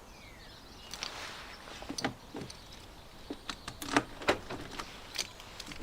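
Series of sharp clicks and light knocks from a Land Rover Discovery 2 car door's lock mechanism and door trim being worked by hand, coming more often in the second half.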